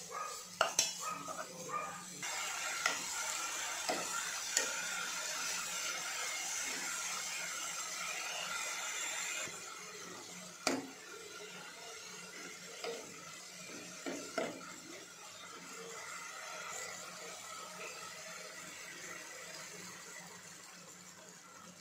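Steel ladle stirring grated carrots in a non-stick pan, knocking and scraping against the pan, over a steady frying sizzle. The sizzle drops away about halfway through, and a few more ladle knocks follow.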